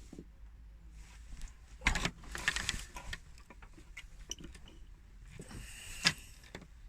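Small metal clicks and scrapes of a thin pick working a broken O-ring out of a coolant crossover pipe port. A busy patch of scraping and clicking comes about two seconds in, and a single sharp click about six seconds in.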